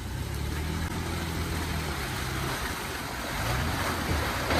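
Vehicle engine running steadily under a rushing noise, which grows louder about a second before the end.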